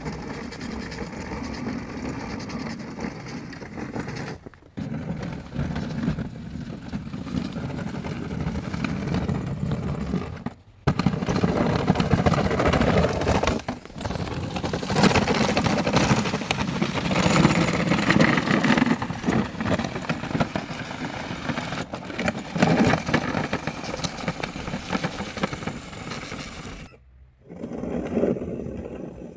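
A DIY track-driven remote-control snow plow running, its drive motors and tracks going as the blade scrapes along and pushes snow. The noise breaks off briefly a few times and grows louder after about ten seconds.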